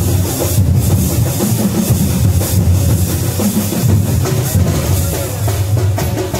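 Music with a heavy drum beat.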